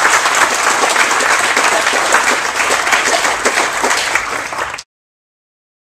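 Congregation applauding: many people clapping steadily together, cut off suddenly near the end.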